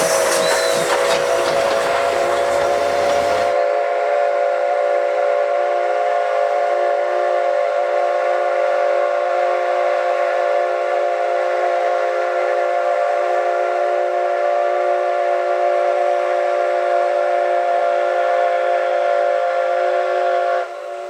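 Steam locomotive C57 180's whistle blowing one long steady blast of several tones, held for about twenty seconds and stopping just before the end. Steam hiss runs under it for the first three and a half seconds, then cuts off abruptly, leaving the whistle alone.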